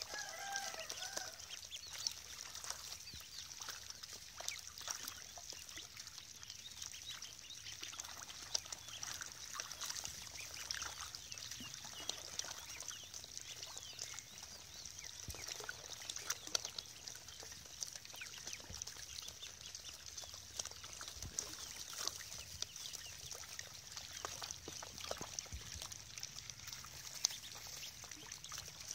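A flock of ducklings peeping in a constant, dense, high-pitched chorus, with splashing from ducklings bathing in a tub of water.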